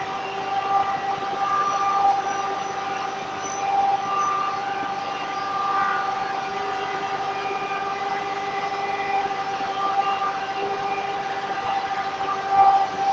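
Woodworking machinery in a sawmill running with a steady whine at one constant pitch, over a hum of machine noise.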